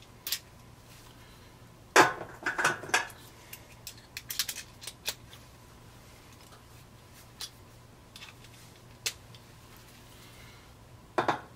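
Scattered light metallic clicks and knocks as a screwdriver and hands work on the sheet-metal housing of a fluorescent light fixture, with a cluster of louder knocks about two seconds in.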